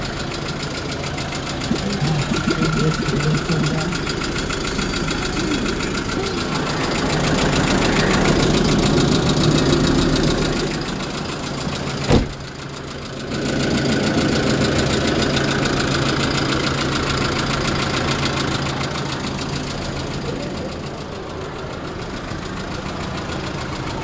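Kia Bongo III truck's engine idling steadily with a fine, even clatter. A single sharp click comes about twelve seconds in.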